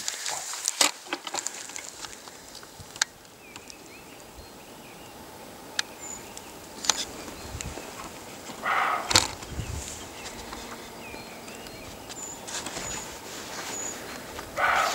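Black grouse giving short hissing calls twice, about nine seconds in and again near the end. Faint high chirps of small birds and scattered sharp clicks come between them, and a single knock follows the first hiss.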